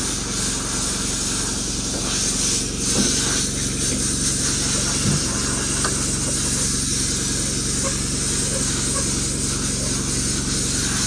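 An engine running steadily with a continuous hiss over it.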